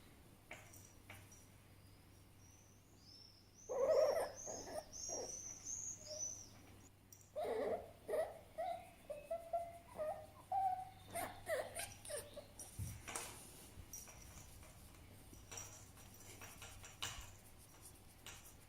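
Fennec fox calling: a burst of quick, high-pitched chirps about four seconds in, then a run of short, slightly rising whining calls from about eight to eleven seconds in, with a few faint clicks in between.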